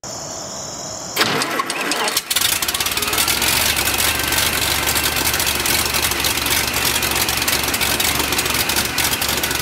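Franklin six-cylinder horizontally opposed aircraft engine on a test stand starting about a second in, then running steadily with rapid, even firing as it turns its propeller.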